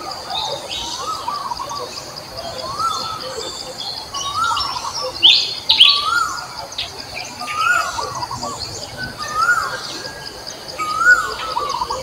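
Outdoor nature ambience: a bird repeats a short rising-and-falling whistled phrase about every one and a half seconds over a steady, high insect buzz. A few sharper, louder high chirps come about halfway through.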